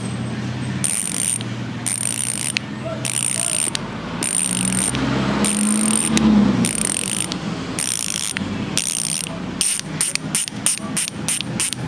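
Heroic AM 8.4 six-pawl bicycle hub freewheeling, its pawls clicking in a fast buzz in repeated spurts about a second long, then in shorter, quicker spurts near the end. It sounds very close to a Speed One Soldier hub.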